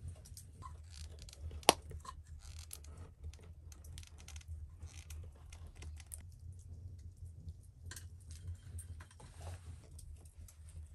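Caulking gun being worked by hand to lay a bead of sealant along a wooden skylight frame: a string of light clicks and ticks from the trigger and plunger, with one sharp click about two seconds in. Near the end a wooden stick scrapes lightly as the sealant is smoothed.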